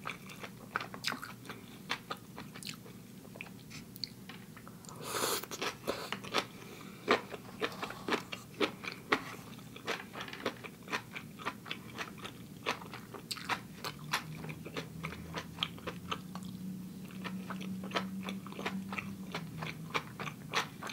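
Close-miked eating of cooked mushrooms: wet chewing with many small mouth clicks and smacks, and a louder crunch about five seconds in. A low hummed tone lasts several seconds past the middle.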